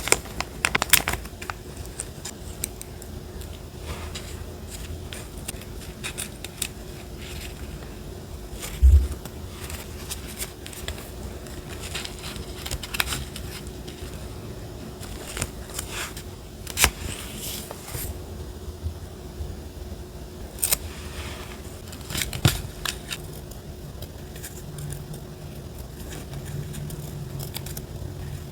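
Small scattered clicks, taps and paper rustles of hands handling paper collage materials and tools on a desk, with a dull low thump about nine seconds in.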